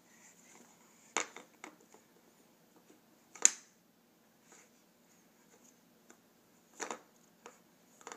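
Chunky wooden animal puzzle pieces clacking against a wooden puzzle board as a toddler handles them and fits them in. A handful of short, sharp knocks, the loudest about three and a half seconds in.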